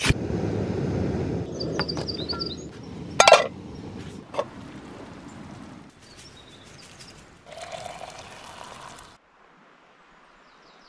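Camp coffee being made: a couple of seconds of rushing noise, then sharp clinks of cookware about three and four seconds in, and a shorter stretch of pouring-like noise near the end. Birds chirp faintly in the background.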